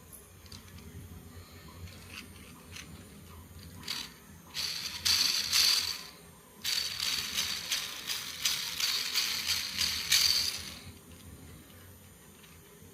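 Hard plastic parts of a 3D-printed spinner rattling and clicking rapidly as it is spun, in two bursts of dense clatter, the second longer, after a few light clicks.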